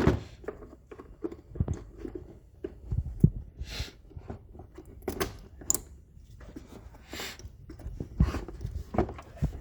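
Scattered plastic clicks, knocks and thuds, with a few brief rustles, as the air intake filter housing and its ductwork are unclipped and pulled out of the engine bay.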